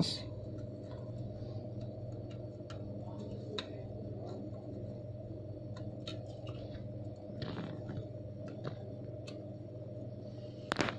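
Steady low electrical hum, with faint, scattered ticks and clicks of small tools working on a phone's circuit board and one sharper click near the end.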